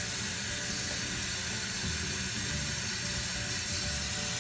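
Kitchen faucet running in a steady stream into a plastic zip-top bag held over a stainless steel sink, filling the bag with water.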